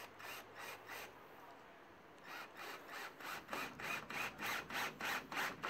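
Cordless drill driving a screw into a wooden boat floor timber, the screw turning into the wood in repeated short pulses about three a second. It pauses for about a second, then carries on.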